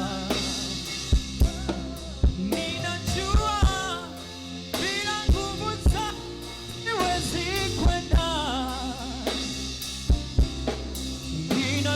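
Gospel praise band music: a drum kit keeping a steady beat with kick, snare and rimshots over a bass line, with a wavering melody line above.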